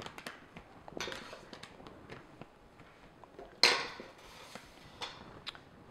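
A spatula scraping and knocking against a stainless steel mixing bowl as macaron batter is scooped out. It makes scattered light clicks and short scrapes, the loudest a scrape a few seconds in.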